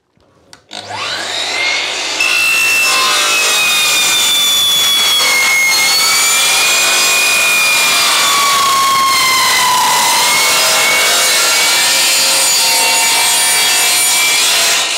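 DeWalt sliding mitre saw spinning up with a rising whine, then its worn tungsten-tipped blade cutting through an aluminium door sill: a loud, shrill metal-cutting screech with wavering whistling tones for about twelve seconds, stopping just before the end.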